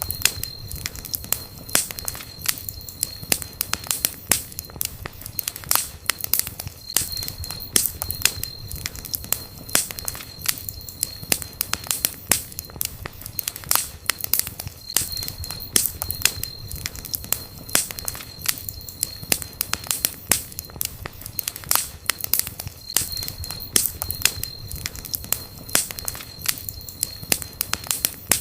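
Wood campfire crackling and popping, with irregular sharp snaps over a low steady rumble of flames. A thin high whistle comes and goes for a few seconds at a time.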